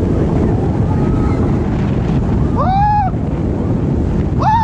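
Roller coaster ride at speed: loud wind rushing over the microphone, with short, high-pitched screams from riders about three seconds in and again at the end.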